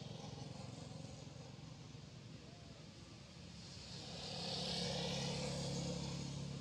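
A motor vehicle's engine humming steadily in the background, growing louder with a rising hiss about four seconds in.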